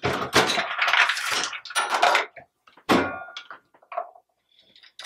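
Progressive reloading press, a Hornady Lock-N-Load AP, being cycled by hand: metal clatter and clanks from the ram stroke and the brass cases in the shell plate. A sharp clank with a short metallic ring about three seconds in, then a few light clicks.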